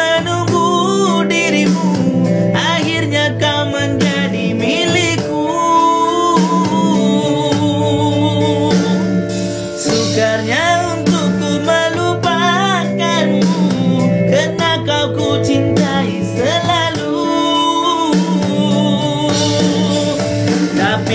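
A man singing a slow song with vibrato, accompanied by sustained chords on an electronic keyboard.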